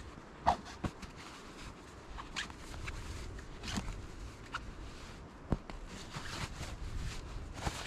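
Rustling of a gear bag and tent fabric being handled, with scattered light clicks and knocks, a few of them sharper, about one every second or so.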